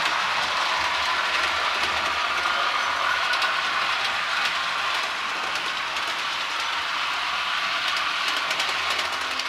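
Model train running along the track: a steady rumble of wheels on rail with light clicking over the rail joints, easing slightly about halfway through.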